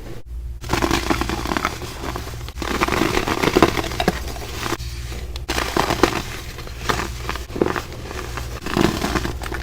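Compressed baking soda crumble being crushed, a dense crisp crunching that comes in runs, with a short break about five seconds in.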